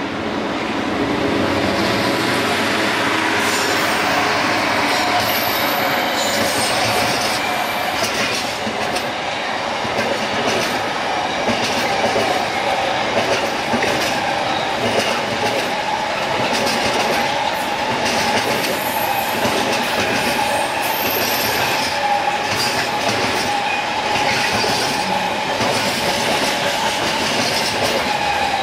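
A long container freight train's wagons rolling past, wheels clicking and rumbling steadily on the rails, with a few brief high-pitched wheel squeals.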